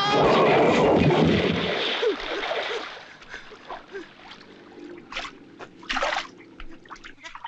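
A big splash as a person plunges into a pond, loud for the first two seconds and then dying away, followed by quieter sloshing with a couple of short, smaller splashes near the end.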